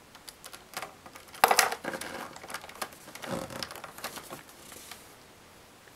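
Hands handling a plastic puzzle cube and pressing a vinyl sticker onto it: scattered light clicks and rubbing, with a louder clack about a second and a half in.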